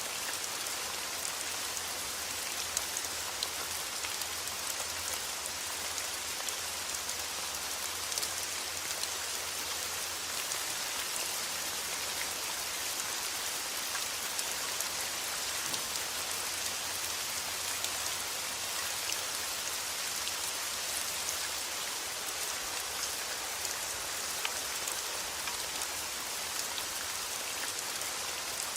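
Steady rain falling, an even hiss with many fine drop ticks, over a low steady rumble.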